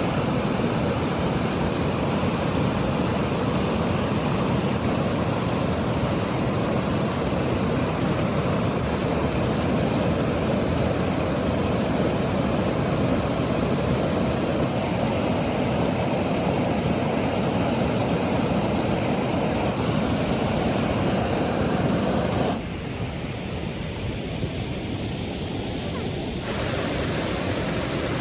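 Steady rush of a river with rain falling, an even wash of water noise. It drops abruptly in level about 22 seconds in and comes back just as suddenly about four seconds later.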